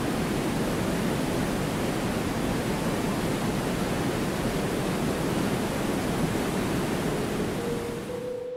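Steady rushing water, an even roar of falling or running water with no breaks. It fades out near the end as a few soft music notes come in.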